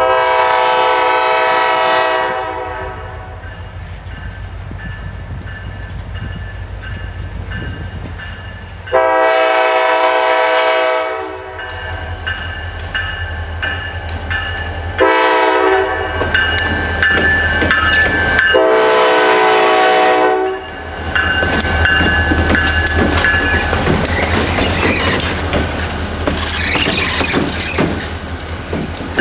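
Air horn of an EMD SD40-3 diesel locomotive, leading an SD40-2 running light, sounding long, long, short, long: the grade-crossing signal. The diesel engines rumble underneath. From about twenty seconds in, the two locomotives pass close by with wheels clattering over the rail joints.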